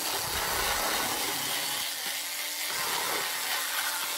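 Harbor Freight Warrior cordless rotary cutter (octagonal knife) running and slicing through thin cardboard: a steady motor hum under the rasp of the spinning blade cutting the sheet.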